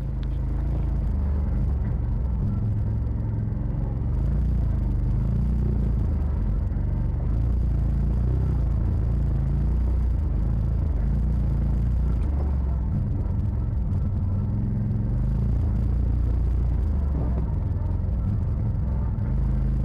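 Side-by-side off-road vehicle driving along a dirt trail, its engine running with a steady low rumble.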